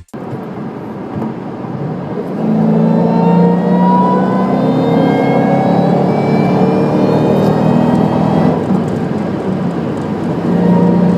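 Car engine pulling under acceleration, its steady low note overlaid by a thin whine that slowly rises in pitch over several seconds.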